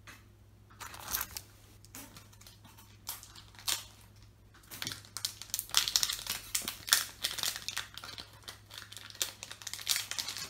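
Naruto card game booster pack's foil wrapper being torn open and crinkled: a few separate crackles at first, then dense crinkling through the second half.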